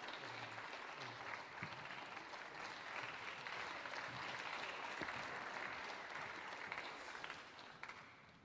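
Snooker audience applauding a match-winning break, the clapping dying away near the end.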